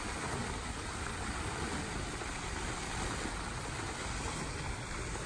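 Steady splashing of an outdoor fountain's water jets falling into its basin.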